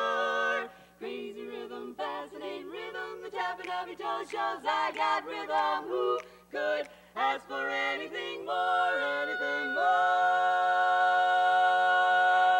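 Women's barbershop quartet singing a cappella in four-part close harmony: quick, rhythmic syllables, then a long held closing chord that rings steady through the last few seconds.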